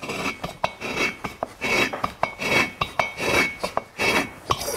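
Hand-turned tungsten valve seat cutter scraping metal from a very hard, stellite-like 45-degree inlet valve seat: rasping, clinking strokes about one every three-quarters of a second, with sharp clicks. It is truing up the seat for a new valve.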